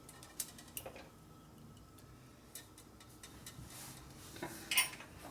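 A few light clicks and taps from a thin tube being handled and flexed against the motorcycle frame. There are two light taps in the first second and a louder double tap near the end.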